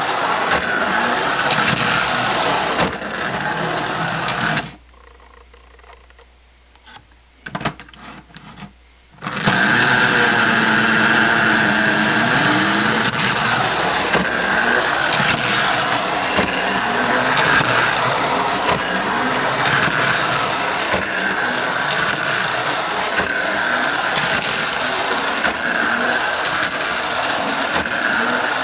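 Lionel postwar gang car's small electric motor and gears whirring steadily as it runs along the track. About five seconds in it goes quiet for about four seconds, with a few clicks, then starts whirring again.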